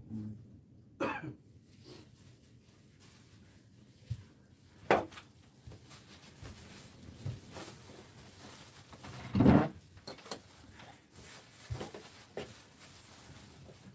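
Scattered knocks and clatter of kitchen things being handled on a table and wooden cutting board, with the loudest thump about nine and a half seconds in.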